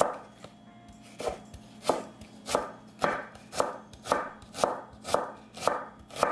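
Chef's knife slicing a red onion into thin slivers on a wooden cutting board: about ten even cuts, roughly two a second, each ending in a sharp tap of the blade on the board, starting about a second in.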